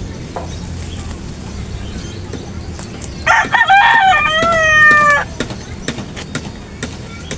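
A rooster crows once, a loud call of about two seconds that starts about three seconds in and falls in pitch at the end. Scattered light clicks come from scissors cutting plastic wrap.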